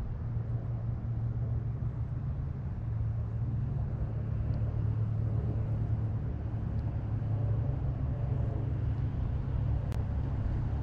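A steady low rumbling hum, even in pitch throughout, with a single sharp click near the end.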